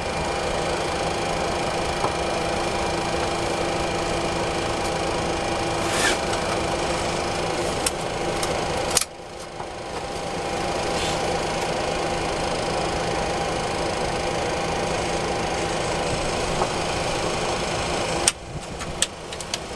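Steady mechanical hum in a Boeing 737-400 cockpit while its number 2 engine (a CFM56-3 turbofan) is being started, with a few sharp clicks. The sound drops abruptly about nine seconds in and builds back up over the next couple of seconds, and dips briefly again near the end.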